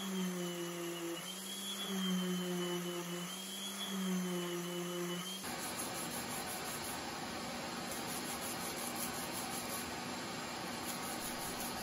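Random orbit sander with a dust-extraction hose running on white oak coasters: the final sanding after the grain was raised with water. For about five seconds it hums steadily with a high whine, the pitch dipping slightly as it is pressed into the wood. Then the hum gives way to an even rushing noise while coaster edges are worked against the upturned pad.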